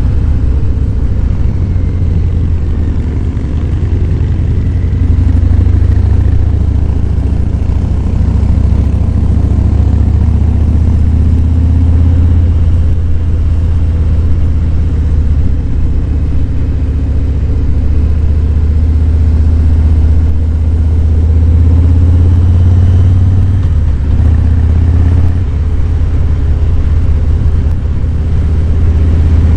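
Harley-Davidson Fat Boy 107's Milwaukee-Eight V-twin running steadily on the road, a deep low rumble whose pitch rises and falls a little with the throttle. About three-quarters of the way through the note briefly drops away and then picks up again.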